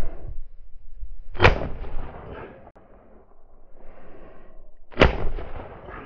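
Two shotgun shots about three and a half seconds apart, each trailing off in an echo.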